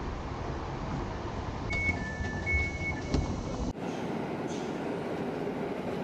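Steady rumble of a PKP Intercity train running, heard from inside a passenger carriage, with a brief alternating two-note electronic beep about two seconds in. It cuts off suddenly to the steady hollow ambience of an underground station platform with a train at it.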